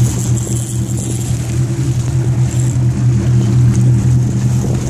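Fishing boat's engine running with a steady low drone, with water rushing and splashing at the hull.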